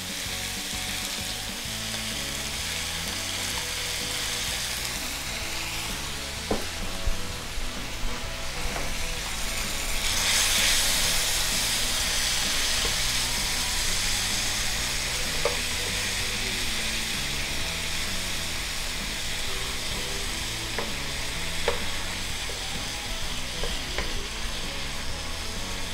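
Thin-cut beef with seasoning and julienned onion sizzling in hot oil in a nonstick skillet while it is stirred with a wooden spatula, with a few light taps and scrapes of the spatula against the pan. The sizzle grows louder about ten seconds in.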